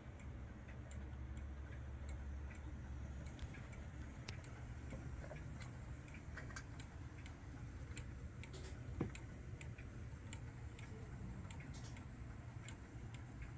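Howard Miller 612-533 regulator wall clock's pendulum movement ticking steadily, with a single louder knock about nine seconds in.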